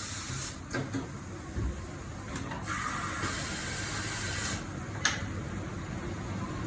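Compressed air hissing in bursts from pneumatic tyre-shop equipment, with a single sharp click about five seconds in.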